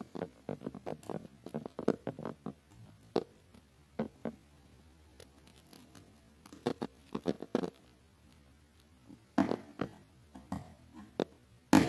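Box cutter slicing through packing tape and scraping along a cardboard box in short, irregular strokes with pauses between them. The loudest stroke comes near the end.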